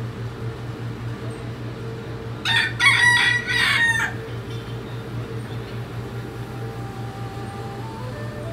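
A rooster crows once, about two and a half seconds in: a single cock-a-doodle-doo lasting about a second and a half. A steady low hum runs underneath.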